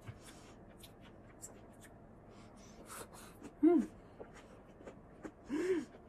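A woman chewing food and letting out two short hummed "mm" sounds of enjoyment, the pitch rising then falling in each, the first a little after three and a half seconds in and the second near the end, with faint small clicks between them.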